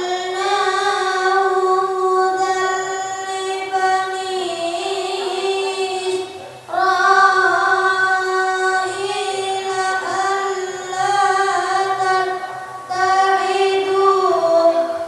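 A boy's high voice in melodic Quran recitation (tilawah), holding long notes, with a pause for breath about six and a half seconds in and stopping near the end.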